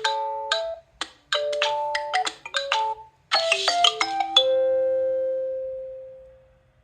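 A stock Nokia 3.1 Plus ringtone: a melody of short, bell-like electronic notes in quick phrases. A brighter chiming flourish comes about three seconds in, and the tune ends on one long held note that fades out.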